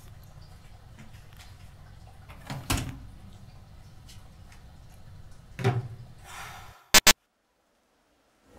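A wooden bathroom door shut with a thud about a third of the way in, and another softer thump a few seconds later. Near the end come two sharp, very loud clicks in quick succession, then dead silence.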